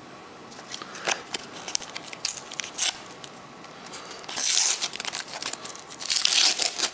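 Panini sticker pack wrappers and stickers being handled: scattered clicks, then two louder bursts of crinkling and tearing about four and six seconds in.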